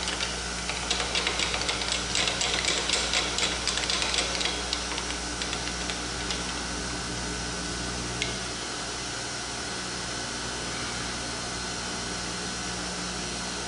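Surface grinder running with a steady hum as the wheel is brought down to touch off on a steel block. For the first few seconds a rapid, dry ticking sits over the hum, then it settles to the hum alone, with a single click about eight seconds in.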